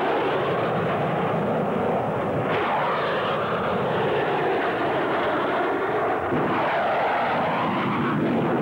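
Loud, steady rush of jet noise from Royal Navy Sea Vixen and Scimitar fighters, twin Rolls-Royce Avon turbojets each, flying low in formation, with a change in the sound about two and a half seconds in.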